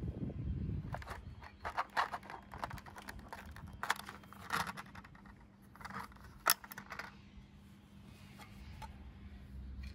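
Panasonic portable CD player being handled: a series of sharp plastic clicks and short rattles as its lid is unlatched and flipped open, with the sharpest click about six and a half seconds in.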